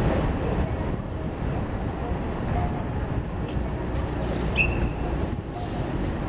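Steady low rumble of a Keihan 13000 series electric commuter train moving slowly through a rail yard, with a brief high squeal about four and a half seconds in.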